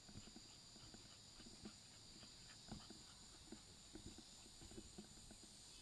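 Faint, irregular footsteps of a person and a dog walking on sandy gravel, over a steady high-pitched hiss.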